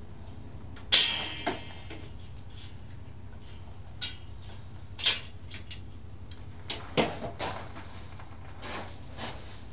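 Metal parts and hand tools clinking and knocking while a dirt bike is taken apart: a sharp, ringing metallic clank about a second in, then scattered knocks and clicks.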